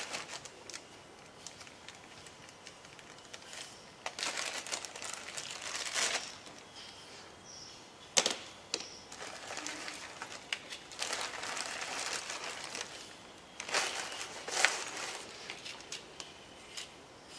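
Clear plastic bags crinkling and rustling in bouts as small metal tools are unwrapped. A sharp click about eight seconds in comes as a metal T-handle wrench is set down on a plastic sheet, and another click follows near the end.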